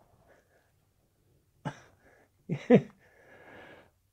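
A man's soft laughter: a short chuckle, then two quick bursts close together, then a breathy exhale.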